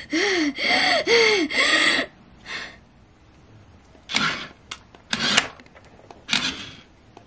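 A voice hums four short notes that rise and fall. Then come three short rubbing or scraping sounds about a second apart as a plastic toy car is moved.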